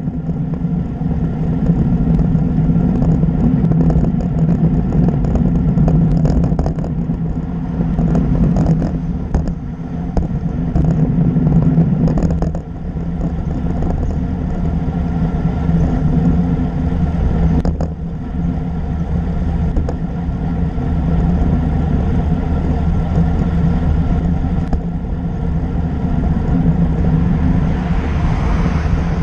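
Steady rush of wind and road rumble on the microphone of a camera riding on a moving bicycle, with a few brief rattles along the way.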